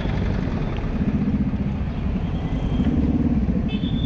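Car and motorcycle engines passing close in busy street traffic, their low drone swelling twice, with a brief high-pitched tone near the end.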